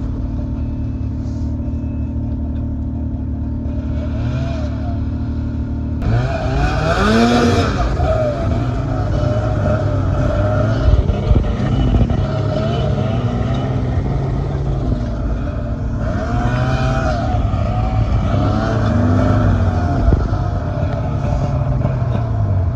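Snowmobile engine running. About six seconds in, the sound changes abruptly, and from then on the engine pitch keeps rising and falling as the throttle is worked.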